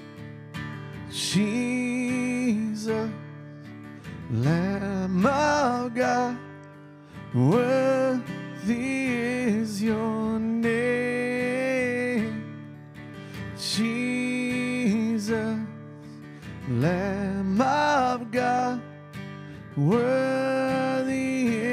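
Worship band music: strummed acoustic guitar under a voice singing long held notes with vibrato that swoop up into each phrase, without clear words.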